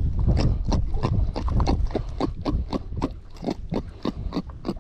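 Small just-landed trevally making a quick, irregular run of short knocking pulses, several a second, with wind rumbling on the microphone underneath.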